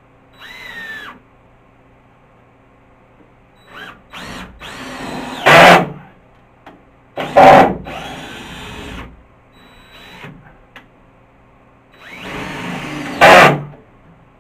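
Power drill driving screws up into a ceiling beam: a short spin, then three longer runs of a few seconds each, every run getting loudest near its end as the screw goes home.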